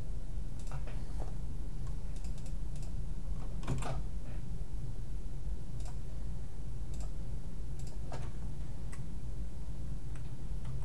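Computer keyboard keys being typed in a slow, irregular run of clicks, over a steady low hum.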